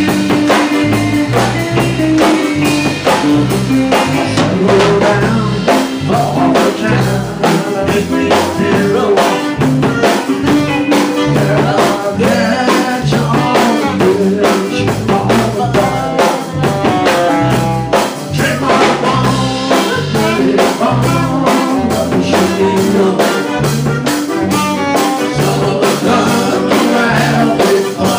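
Live band playing, with a drum kit keeping a steady beat under a moving bass line and other instruments.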